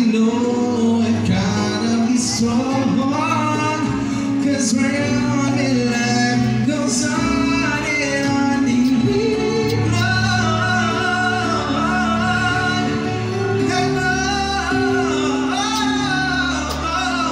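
Live band playing a song with a singer, amplified through the room's speakers.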